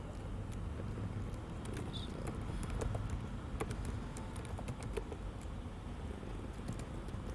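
Typing on a computer keyboard: irregular, scattered keystrokes over a steady low background hum.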